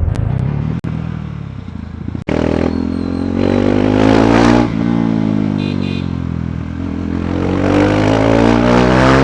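KTM Duke 390 single-cylinder engine through its stock exhaust, accelerating hard. After about two seconds of low running, the revs climb steeply, drop at a gear change about halfway through, and climb again.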